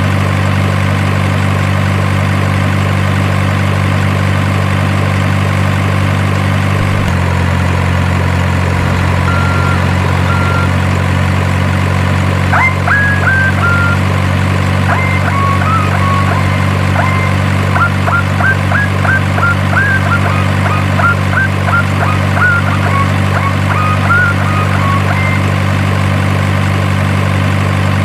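Steady idling engine drone, the engine sound of an RC construction model, with a slight drop in pitch about seven seconds in. Short high chirps come and go over it in the second half.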